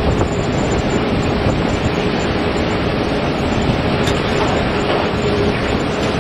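Singapore Airlines Airbus A380-800's Rolls-Royce Trent 900 engines running at taxi power as the jet rolls along the taxiway: a steady jet roar with a faint steady tone in it.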